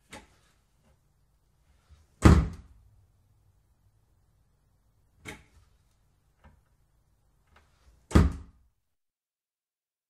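Wooden kitchen cupboard door opened and shut twice: a light click as it opens, then a loud wooden thud as it closes about two seconds later each time.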